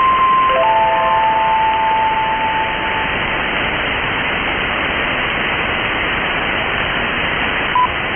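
Last few notes of a shortwave station's interval signal, simple single tones, heard over an AM shortwave channel and giving way after about three seconds to steady static hiss. A short beep sounds near the end, just before the station opens.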